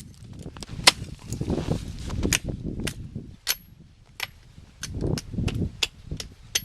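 A blade chopping into a small tree: a series of sharp chopping strikes, roughly two a second, some with a brief high ring.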